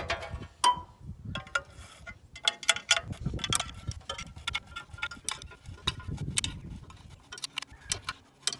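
Hand tools on steel hydraulic fittings and a remote valve body: an irregular run of sharp metallic clicks and clinks, each with a short ring, coming thick and fast in the middle.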